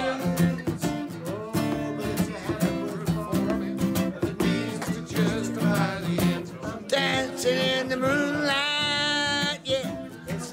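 A man singing to a strummed acoustic guitar, holding one long note near the end.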